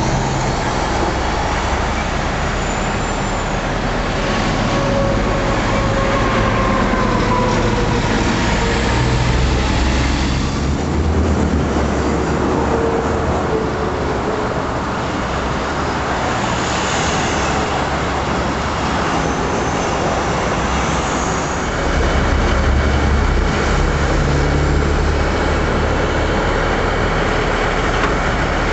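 Steady highway traffic, with cars and trucks passing on the interstate, over a low heavy-engine rumble that grows louder about 22 seconds in.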